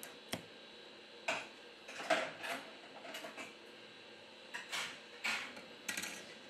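Light, scattered clicks and taps of a smartphone's plastic upper antenna module, with its metal shield plates, being pried loose and handled: about eight separate small knocks over several seconds.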